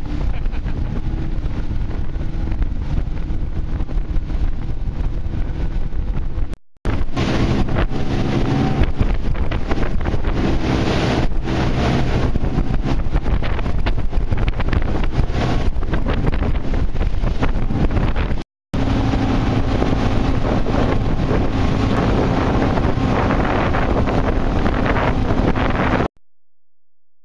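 Twin Johnson outboard motors running at speed under heavy wind buffeting on the microphone, with a steady low engine hum beneath the rush. The sound drops out briefly twice and cuts off near the end.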